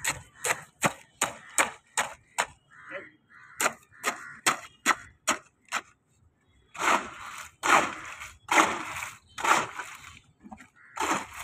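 Metal hoe blade chopping into a heap of wet concrete mix of gravel, sand and cement on the ground, a rapid run of sharp clacks about three a second. About seven seconds in it changes to slower, longer scraping strokes, roughly one a second, as the mix is dragged through.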